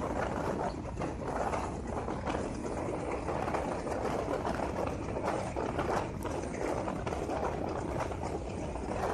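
Passenger train running at speed, heard from the open door of a coach: a steady rumble with continuous rattling clatter of the wheels over the track.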